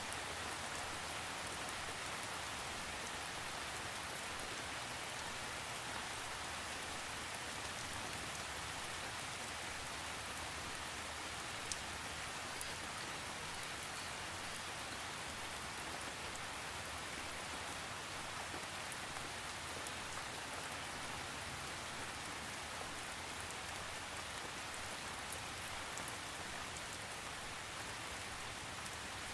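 Steady rain falling on a surface, an even hiss with scattered drops, without thunder.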